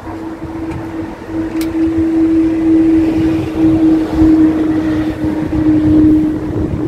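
A vehicle engine running close by: a steady low hum over a rumble, growing louder about a second and a half in.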